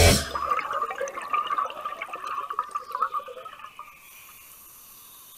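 Underwater gurgling of scuba exhaust bubbles rising. It comes in irregular bursts that fade away over about four seconds, leaving a faint steady hiss.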